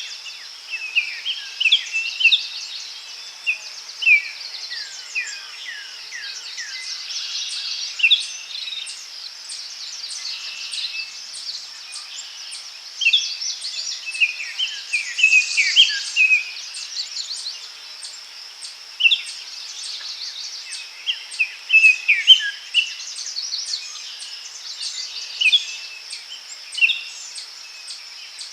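Forest ambience: many birds calling in short, quick, falling chirps, scattered irregularly over a steady high-pitched drone.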